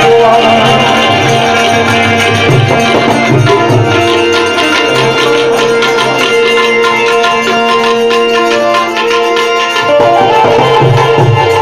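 Harmonium and tabla playing an instrumental passage: the harmonium holds steady notes while the tabla keeps up a dense rhythm with deep bass strokes.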